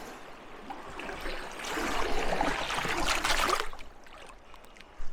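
Water sloshing and trickling around a canoe, swelling to a louder splashing for about two seconds from near the middle, then fading.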